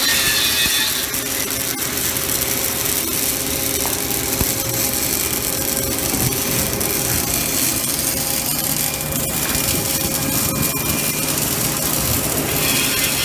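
Automatic pipe welding machine (mechanized MIG) laying a girth weld: steady hiss and crackle of the arc over a constant machinery hum.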